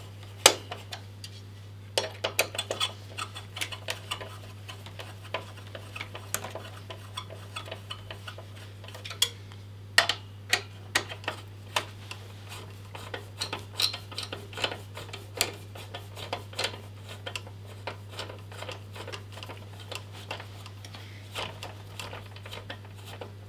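A screwdriver clicking and clinking on metal while undoing the mounting screws of an AMD stock CPU cooler inside a PC case: irregular small ticks and taps over a steady low hum.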